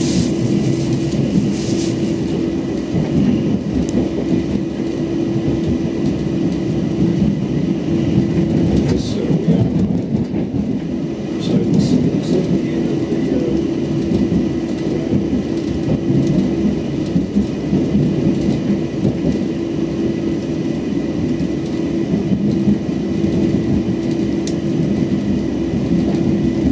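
Inside a moving electric commuter train: steady rumble of wheels on the rails with a constant hum from the electric drive.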